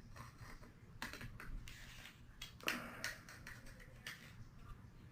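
Faint, scattered clicks and taps of metal parts being handled, as a barrel wrench is fitted to the shotgun's barrel lock ring. The two slightly louder clicks come about a second in and near the middle.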